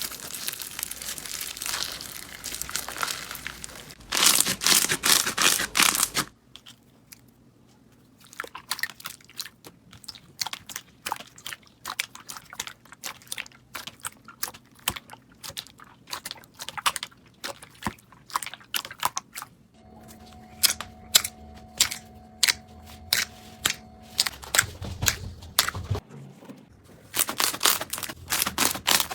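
Slime being squeezed and poked: crinkly crackling at first, then dense runs of sharp clicks and pops, followed by a long stretch of separate clicks. A low thud comes near the end, just before another dense burst of clicks.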